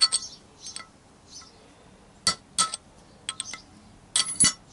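Sharp metallic clinks with a short ring, about half a dozen irregular strikes, the loudest pair about two and a half seconds in and a quick cluster near the end. A steel punch is being worked against the Yamaha XJ900S Diversion's steering stem and roller bearing, which has got stuck on the stem.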